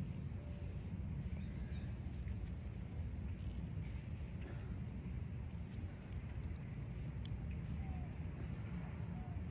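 Outdoor park ambience: a steady low rumble with a small bird giving short, high, falling chirps three times, about a second in, around four seconds in and near the end.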